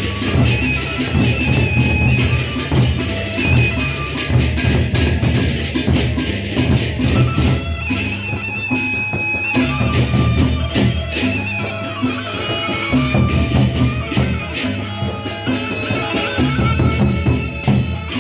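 Sasak gendang beleq ensemble playing: large barrel drums beaten with sticks, giving deep strokes under a dense, fast clashing of metal percussion, with held metallic ringing tones on top.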